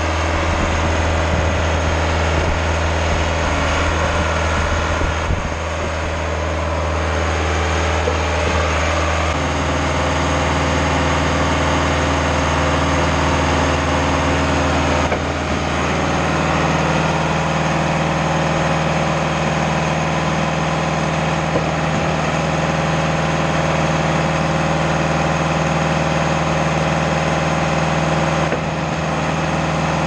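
Schwing BPA750 trailer concrete pump running with its hydraulics put under pressure: a steady engine hum whose note shifts about nine seconds in and steps up in pitch about sixteen seconds in.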